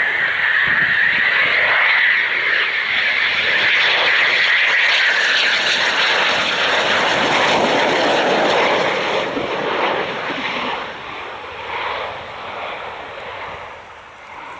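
Eurofighter Typhoon's twin EJ200 turbofan engines on landing approach with gear down: a loud high whine that gives way to broader jet noise as it passes low overhead, fading away after about ten seconds.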